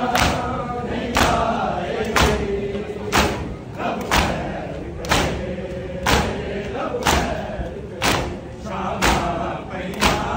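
A crowd of mourners doing matam, striking their chests with open hands in unison, about one loud slap a second. Men's voices chant in chorus between the strikes.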